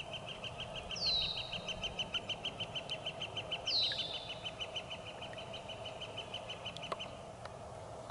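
Birds calling: one gives a fast, even series of high notes, about five a second, that stops about seven seconds in, while another gives a sharp down-slurred whistle twice, about three seconds apart.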